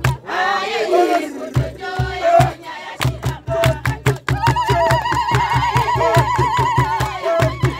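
Oshiwambo traditional dance music: a hand drum beating a fast, steady rhythm with sharp claps, under group singing. The drumming is sparse at first and settles into its steady beat about three seconds in, and in the second half a high, wavering voice holds one long call for about three seconds.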